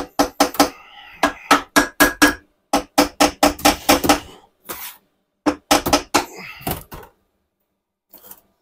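A hammer striking the aluminium crankcase of a first-generation Yamaha R1 engine in a rapid run of about twenty blows, about three a second, each with a short metallic ring, to knock the case halves apart. The blows stop about seven seconds in.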